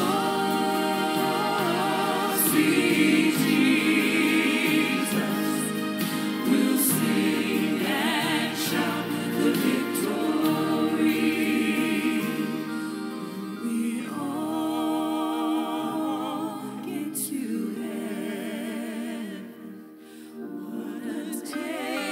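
Gospel vocal group singing a hymn together in harmony, the held notes wavering with vibrato. Near the end the sound dips away briefly before the singing carries on.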